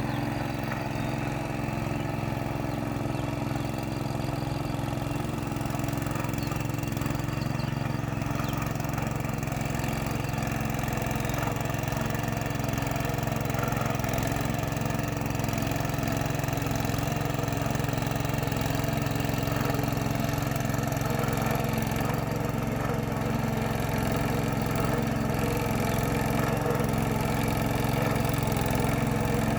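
Tractor's diesel engine running steadily while working a paddy field, growing slightly louder toward the end.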